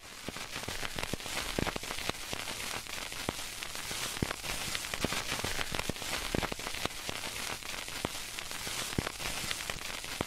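Steady crackling hiss with scattered sharp clicks.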